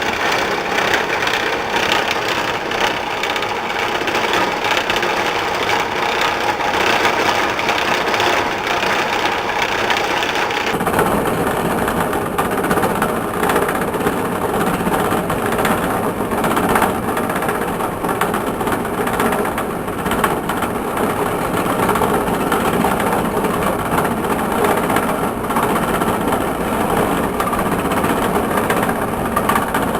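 A machine with a bad pulley running continuously, a steady mechanical noise. About eleven seconds in, the sound changes abruptly, becoming fuller and lower with less hiss, then runs on steadily.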